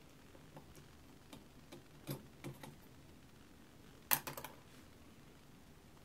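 Scattered light clicks and taps of small parts being handled and fitted against a bare brushed electric motor from a jig saw, with a quick cluster of sharper clicks about four seconds in.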